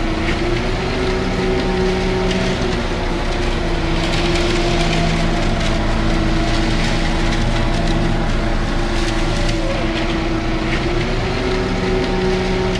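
Large XE4000 mining excavator working. Its engine and hydraulics drone steadily, the pitch shifting now and then, while rock and dirt crunch and clatter in the bucket.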